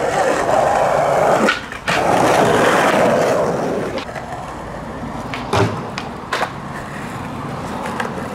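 Skateboard wheels rolling, loud for the first four seconds and quieter after that. Sharp board clacks and impacts break in about a second and a half in and again near six seconds, where the loudest one has a low thud.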